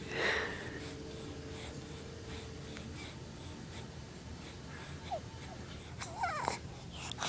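A baby's breathing and small vocal noises: a short breathy sound at the start, tiny squeaks about five seconds in, and a brief wavering coo that rises and falls about six seconds in.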